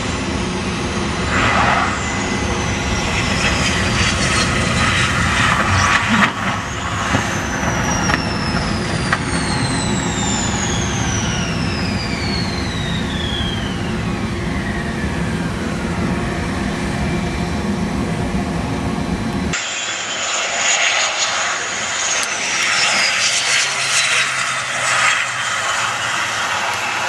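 Twin-engine CF-18 Hornet fighter jets on the landing rollout: a steady jet roar with long whines falling slowly in pitch. After a sudden cut near the end, a second Hornet's jet noise with less rumble and a high whine that falls in pitch.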